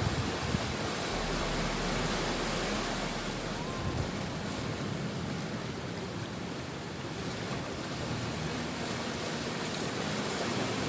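Ocean surf: a steady wash of waves breaking against the shore.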